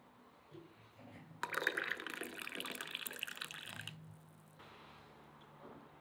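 A samovar's tap pouring a stream into a small glass tea cup. The pour starts about a second and a half in and stops about two and a half seconds later.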